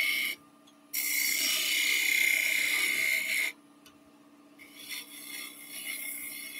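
Turning tool cutting a small pin on the end of a wooden bauble spinning on a lathe, a scraping hiss in separate passes: a long pass from about one second to three and a half, and a softer one near the end, with short quiet gaps between.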